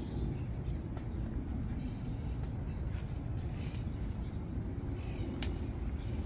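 Birds chirping now and then over a steady low rumble, with a single sharp click about five seconds in.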